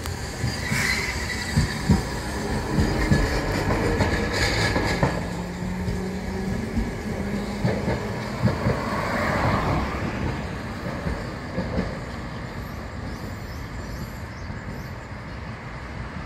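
Kagoshima City tram running along its track, its wheels knocking over rail joints, with short wheel squeals near the start and about four to five seconds in.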